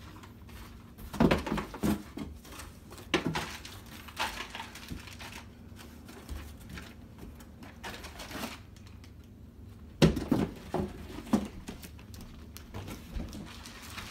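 Cardboard box and its packing being handled: irregular rustling and scraping of cardboard with scattered knocks of flaps and pieces, the loudest a sharp knock about ten seconds in.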